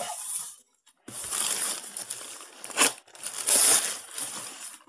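Clear plastic wrapping crinkling as it is handled, in several rustling bursts with a sharp crackle near three seconds in.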